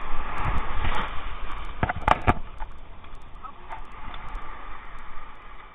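Wind buffeting the microphone, heaviest in the first second or so, with a quick cluster of sharp knocks about two seconds in.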